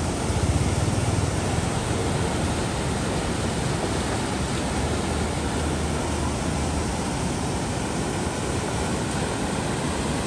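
Water rushing out of dam sluice outlets and churning below a bridge, a steady, loud rushing noise.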